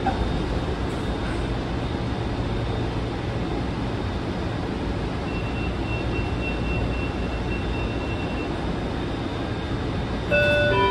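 Interior running noise of a Washington Metro 7000-series railcar in motion: a steady rumble and hum, with a faint high whine through the middle. Near the end a louder pitched sound cuts in.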